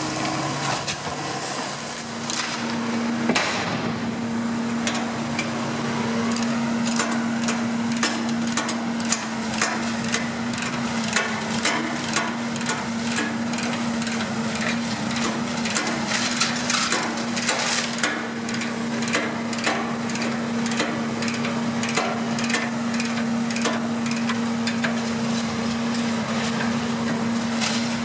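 Scrap wood cracking and splintering in many sharp snaps, at times several a second, over a steady machine hum that sets in about two seconds in. This is waste wood being handled by a material handler's grapple and fed into a wood shredder.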